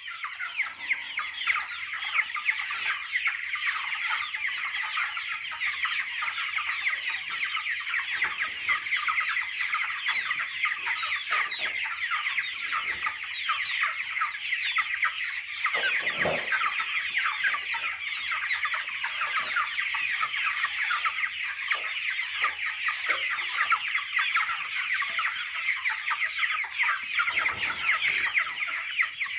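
A large flock of young chickens, at about 28 days old, peeping and clucking all at once in a dense, continuous chatter. There is a single brief knock about halfway through.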